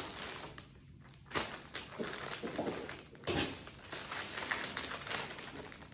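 Clear resealable plastic bag crinkling and rustling in several short bursts as supplies are packed into it by hand.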